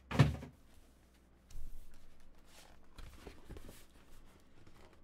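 A single thump just after the start, then quiet rustling and sliding as a thick quilted card-stock folder is handled and opened by hand.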